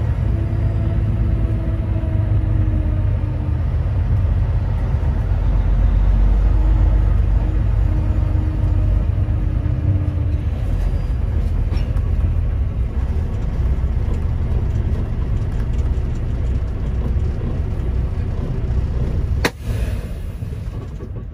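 Kenworth semi truck's diesel engine running as the truck rolls slowly, heard from inside the cab as a steady low rumble with a faint engine tone that falls slowly in pitch a couple of times. Near the end there is a sharp click, after which the sound drops away.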